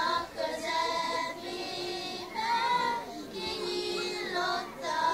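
A group of young girls singing a Hungarian folk song together into a microphone, with long held notes.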